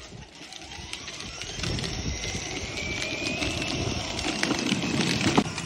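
Small electric motor of a battery-powered ride-on toy tractor driving along, whining with a tone that rises slightly about two seconds in. Its hard plastic wheels rumble and click over rough concrete, and the sound grows louder as it goes.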